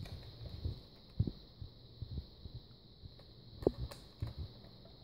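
Soft handling sounds of fingers working at a laptop LCD panel's ribbon cable connector and its adhesive pull tab: a few scattered low thumps and light clicks, over a faint steady high-pitched whine.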